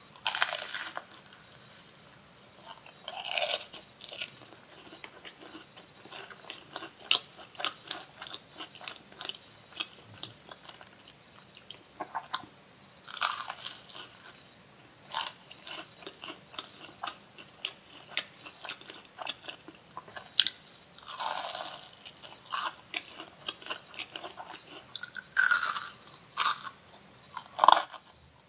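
Close-miked biting and chewing of a corn dog: a handful of loud crunches from bites into the fried batter, several seconds apart, with steady small chewing clicks between them.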